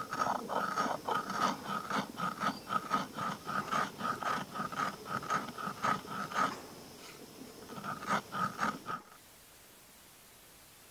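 Stone roller (nora) scraped back and forth over sugar on a flat grinding stone (sil), crushing the crystals to powder, about three strokes a second. The strokes pause about six and a half seconds in, start again briefly, and stop suddenly about nine seconds in.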